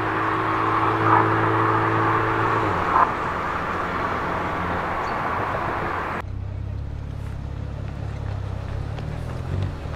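Steady road traffic noise from passing cars. Then, after a cut about six seconds in, the Mercedes-AMG CLA35's turbocharged 2.0-litre four-cylinder with an aftermarket Milltek exhaust idles steadily with a low, even hum.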